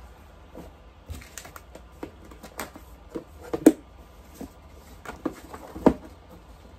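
Irregular clicks, taps and light rustles of a quilting kit's fabric, paper and box being handled, with two louder knocks, one about halfway through and one near the end.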